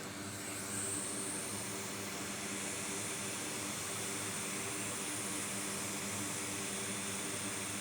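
Hot air rework station blowing a steady airy hiss, which comes up under a second in, over a steady low hum, as a connector on a liquid-damaged MacBook logic board is heated to be desoldered.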